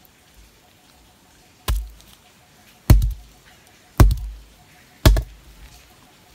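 Large knife chopping down through a young green jackfruit, four heavy chops about a second apart, each ending in a thud as the blade goes through.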